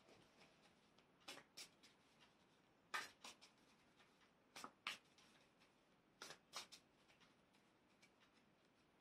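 Faint hand shuffling of a tarot deck: short, soft card snaps in about four pairs, a pair every second and a half or so.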